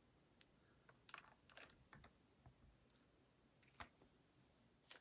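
Near silence: room tone with a few faint, scattered small clicks.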